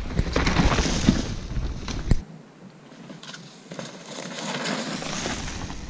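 Mountain bike riding a loose dirt trail: tyre noise over dirt and leaf litter with rattling clicks from the bike and a low rumble, then a sharp knock about two seconds in, after which it goes quieter and the rumble drops away before the tyre noise builds again.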